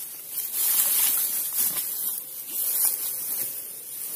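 Grass and dry stalks rustling as someone pushes through them by hand and foot, over a steady high-pitched insect chorus.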